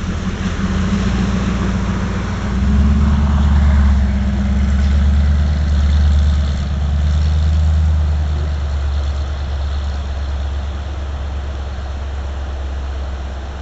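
An off-road 4x4's engine running with a steady low rumble. It swells about two and a half seconds in, then slowly fades as the vehicle pulls away up the snowy trail.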